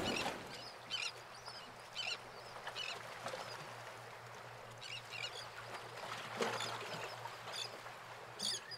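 Short, high bird calls come every second or so, louder near the end, over a faint steady low hum.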